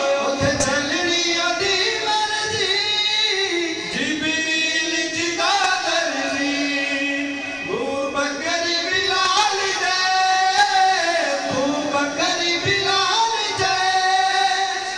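A man singing a Punjabi devotional kalaam (naat) into a handheld microphone, drawing out long held notes that glide and waver in pitch, with only brief breaks between phrases.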